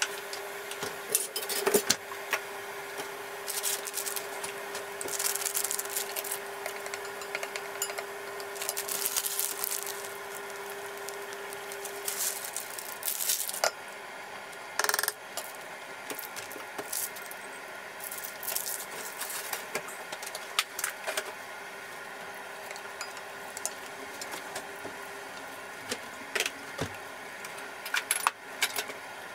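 Kitchen handling sounds: dishes and utensils clinking, tapping and being set down on the worktop at irregular moments. A faint steady hum stops about twelve seconds in.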